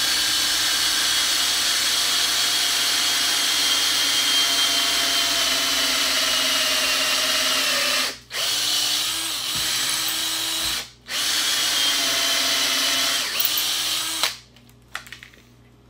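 Craftsman cordless drill boring a hole into an engine block through a drill-fixture bushing, run at low speed with a little cutting oil; its whine sags slightly in pitch under load. It runs in three stretches, stopping briefly about eight and eleven seconds in, and stops for good a second or so before the end.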